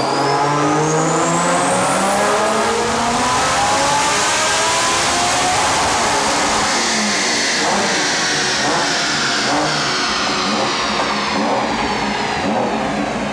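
BMW 1M's single-turbo N54 inline-six pulling hard: the engine note climbs for about four seconds with a high turbo whistle rising alongside it, then falls gradually as the revs wind down.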